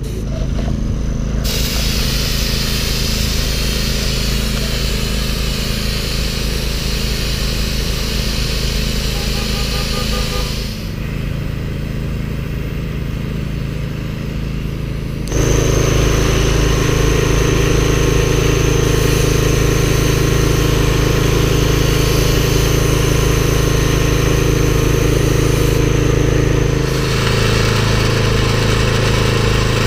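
A motor running steadily with a low hum. It shifts abruptly in level and tone a few times, louder from about halfway through.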